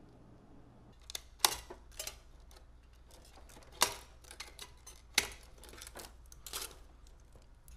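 Scattered sharp clicks and light knocks of hard computer parts being handled and fitted inside a PC case, about eight of them at irregular intervals starting about a second in.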